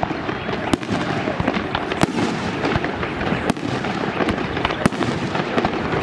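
Fireworks display: aerial shells bursting overhead, a steady string of sharp bangs coming about once a second over a continuous background din.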